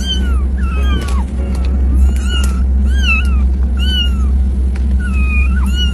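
A kitten meowing over and over: about eight short, high-pitched cries, each bending up and then falling, with a steady low hum underneath.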